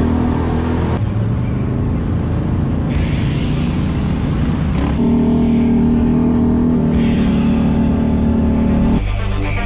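Loud electronic background music with a heavy, sustained bass line that changes every two seconds.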